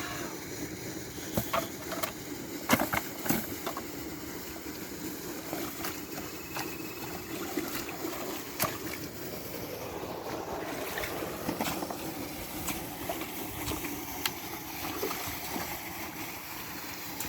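Water sloshing and splashing steadily as fish are handled, with a cluster of sharp splashes a couple of seconds in and single ones near the middle and later on.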